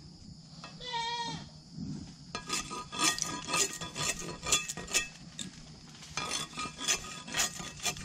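Parang blade scraping and chopping along a thorny salak palm stem to strip off its thorns, in quick repeated strokes of about three a second from about two seconds in. About a second in, a brief wavering animal call.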